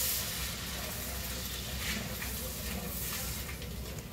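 Onions, peppers and celery frying in butter in a cast iron skillet, a steady sizzle, stirred with a wooden spoon, with light scrapes near the end.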